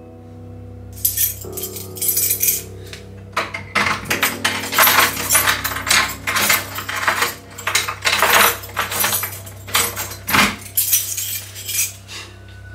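A metal door handle and lock being rattled and clicked over and over in quick, irregular bursts as someone works at a door, with metallic clinking. Faint steady background music runs underneath.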